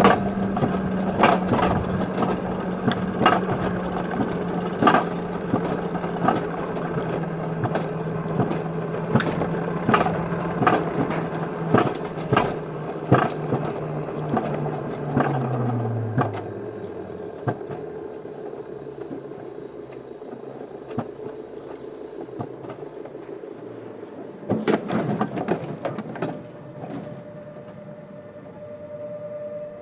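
Alpine coaster sled running on its tubular steel track: a steady mechanical hum with regular clicks and knocks. About halfway through, the hum falls in pitch and dies away, leaving quieter clicking, with a cluster of louder knocks near the end.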